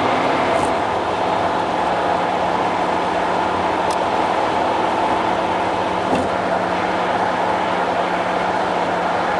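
Steady road and tyre noise of a car cruising on an expressway, with a constant low hum and a few faint ticks.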